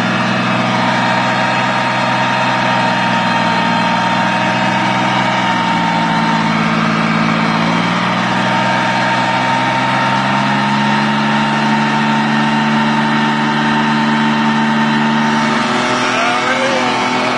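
The diesel engine of an amphibious LAV (Marine Corps light armored vehicle) running steadily under load. Its pitch sags about six seconds in, climbs again after about ten seconds, and drops near the end.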